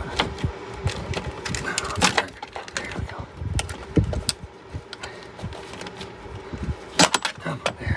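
Knocks, clicks and clatter of heavy electrical cables and fittings being handled inside a sheet-metal inverter/charger cabinet, with louder knocks about two and four seconds in and a sharp clatter about seven seconds in, over a steady faint hum.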